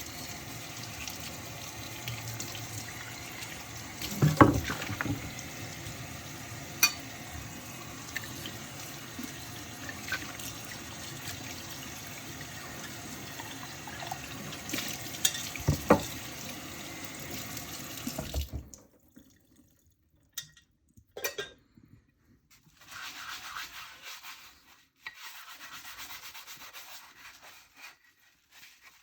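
Washing dishes by hand at a sink: a tap runs steadily, with a few sharp clinks and knocks of dishes. The water stops suddenly about two-thirds of the way through, followed by small handling sounds and two short spells of rubbing and water.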